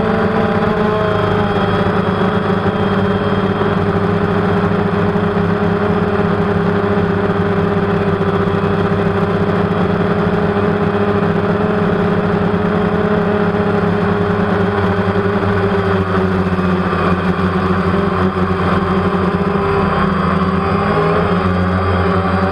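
DJI Phantom quadcopter's electric motors and propellers humming steadily in hover, heard close up from the camera it carries. The pitch wavers a little near the start and again near the end.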